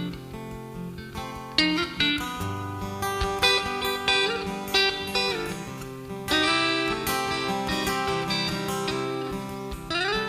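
Instrumental break in a country-folk song: a strummed acoustic guitar with a picked guitar melody on top. There is a short rising slide in pitch near the end.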